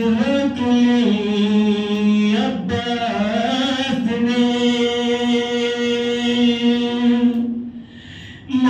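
A male voice chanting a noha, a Shia lament, without instruments and amplified through a microphone, with long held notes. It breaks off briefly near the end, then starts again.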